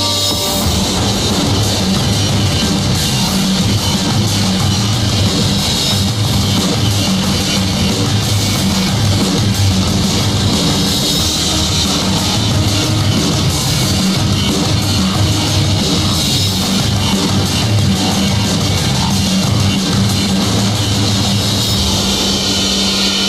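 Loud backing rock music with drums and guitar.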